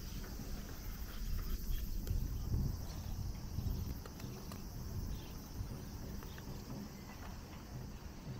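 A steady, high insect chorus trilling above a low, uneven rumble, with a few faint scattered ticks.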